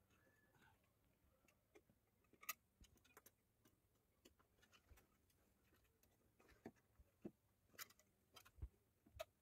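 Near silence with faint, scattered clicks and rustles as paper is pushed into a small sheet-metal electrical box by hand. The sharpest taps come about two and a half seconds in and in the last couple of seconds.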